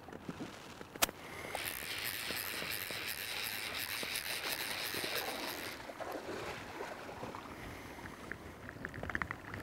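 Fly reel's drag buzzing with rapid even clicks for about four seconds as a hooked trout runs line off the reel. A single sharp click comes just before it.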